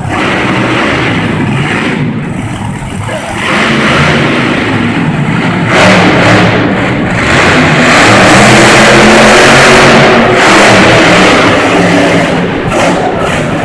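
Monster truck engine revving hard as the truck spins donuts on a dirt floor, swelling a few seconds in, loudest in the middle and easing off near the end.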